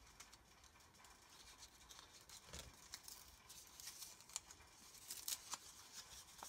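Faint rustling of paper and card craft pieces being handled, with a few soft clicks.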